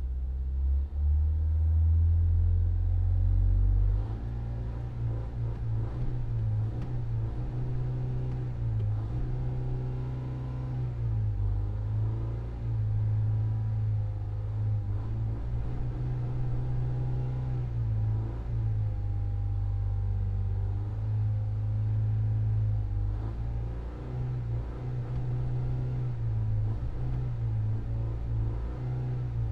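2026 Volkswagen Jetta's turbocharged four-cylinder engine being revved repeatedly, its pitch rising and falling over and over above a steady low rumble.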